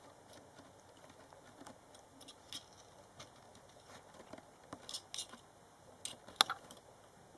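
Scattered taps, scratches and small clicks as a Scottish Fold kitten paws at the camera and its strap, with a sharper knock about six seconds in.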